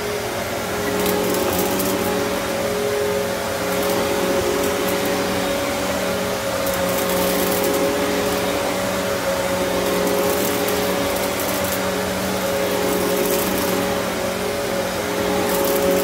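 Riccar Vibrance Classic upright vacuum cleaner running on carpet, a steady motor hum with suction noise, pushed forward and pulled back. Brief crackles sound every few seconds.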